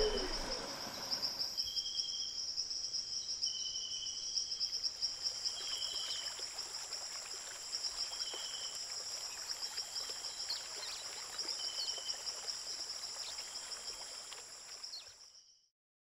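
Tropical forest ambience: insects trilling in a steady, finely pulsing high drone, with short high chirps repeating every second or two on top. It fades out a little before the end.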